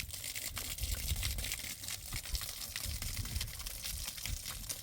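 Irregular crackling and rustling, many small clicks in quick succession, over a low rumble.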